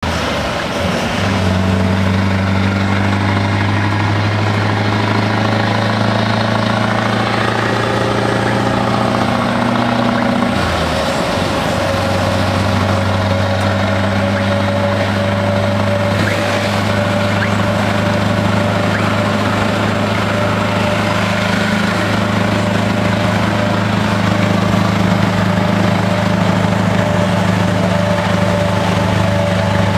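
Scania truck's diesel engine and cab noise while driving on a wet road: a steady engine drone over road noise. The engine note climbs slightly and then breaks off for a moment about ten seconds in before settling back to a steady drone.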